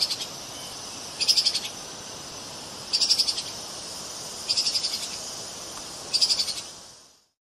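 Treeshrew (Tupaia) calling: a short, rapid, high-pitched chattering trill repeated five times, evenly spaced about a second and a half apart, over a steady high hiss.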